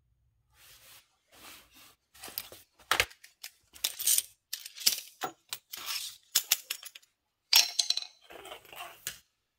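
A run of short rustles, scrapes and clinks from someone shifting on his knees and handling tools, with a sharp knock about three seconds in.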